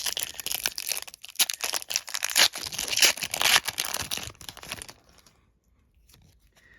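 Foil Pokémon card booster pack being torn open and its wrapper crinkled, a dense crackling rustle that stops about five seconds in.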